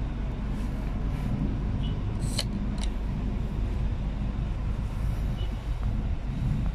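Steady low rumble of a motor yacht's machinery running at idle: the MTU diesel port engine and the Kohler generators. Two short clicks come a little over two seconds in.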